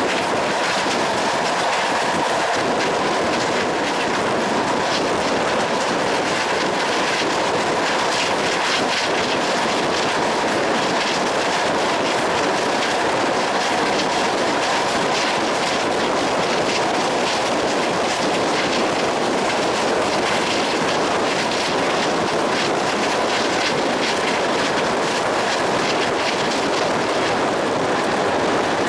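Train moving at steady speed, its wheels clicking over the rail joints above an even running noise.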